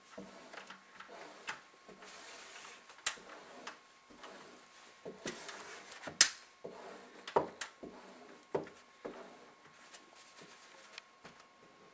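A hard card wrapped in paper towel pushed and rubbed over freshly applied window film on glass to force out the water under it, with scattered knocks and taps, the loudest about six seconds in.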